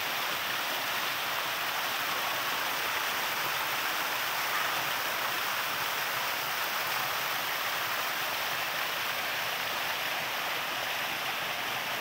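Waterfall streaming down a steep rock face: a steady, unbroken rush of falling and splashing water.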